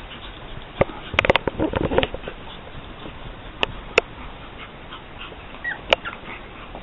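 Pug puppy whimpering and snuffling, among scattered sharp clicks and knocks with a busier cluster of them one to two seconds in, and a short high squeak near the end.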